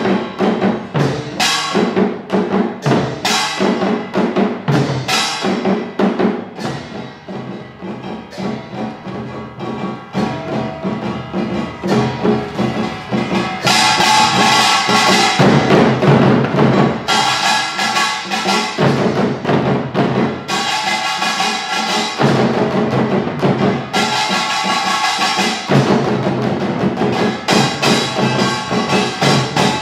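Korean samulnori percussion ensemble playing a fast, driving rhythm on kkwaenggwari small gongs, a jing large gong, janggu hourglass drums and buk barrel drums. The playing grows softer for several seconds, then swells back louder about halfway through, with the gongs ringing out over the drums.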